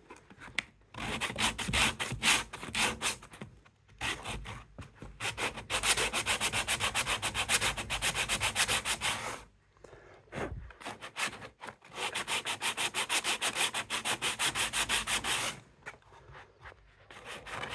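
Sandpaper wrapped around a wooden block rubbing back and forth over hardened two-part wood filler on a skirting-board corner, sanding the proud filler back flush. Quick, even strokes in long runs, with a pause of about two seconds midway and a tailing off near the end.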